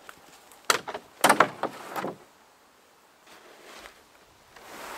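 Hollow knocks and bumps against a canoe hull as gear is loaded and the boat is handled, a quick cluster of sharp knocks about a second in, the loudest of them close together. A steady rustling scrape starts near the end.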